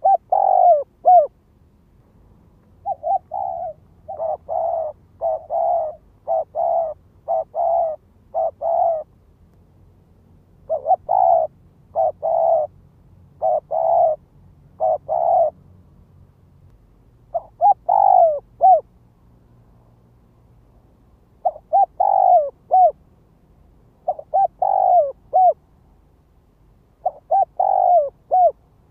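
Spotted dove cooing: repeated phrases of low, hollow coos, first a quick run of about seven coos, then short groups of three or four coos, each ending on a falling note, with pauses of a second or two between phrases.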